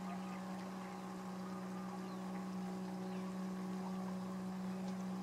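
A steady low hum with a few higher overtones, unchanging throughout, under a faint hiss and a few scattered faint ticks.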